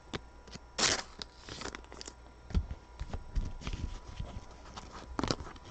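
Trading cards being handled and flipped through: scattered light clicks and rustles, with a louder brushing sound about a second in and another near the end, and a couple of low knocks in the middle.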